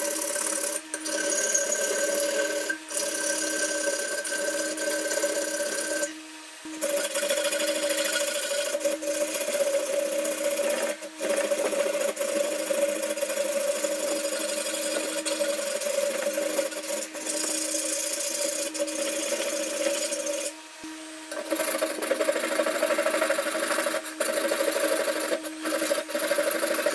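Hand file rasping in quick, continuous strokes along the edge of a steel katana blade held in a vise, shaping the blade by hand. The strokes stop briefly a few times, with longer pauses about six seconds in and about three quarters of the way through.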